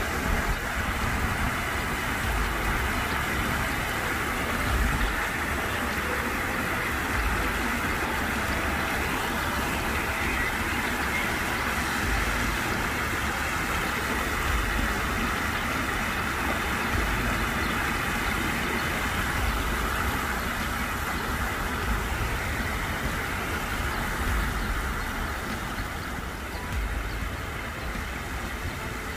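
Water spilling over a low weir in a shallow stream, a steady rushing noise, with wind buffeting the microphone in low rumbles. It grows a little quieter near the end.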